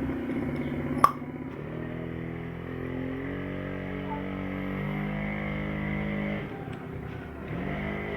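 A rhythmic engine-like pulsing, broken by a sharp click about a second in, then held musical tones that shift pitch every second or two.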